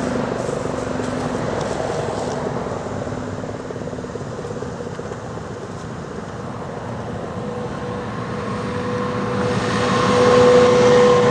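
Restored Werden 8-port outdoor warning siren sounding a steady held tone. It fades in the middle and swells again near the end as the rotating horn turns away from and back toward the listener.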